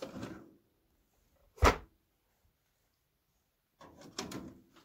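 Metal tool chest handled: one sharp knock about a second and a half in, then a few light metal clicks and rattles near the end as the tools in its top tray are touched.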